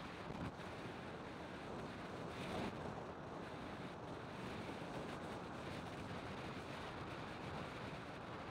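Steady rush of wind on the microphone over the road noise of a vehicle travelling along a paved road, briefly louder about two and a half seconds in.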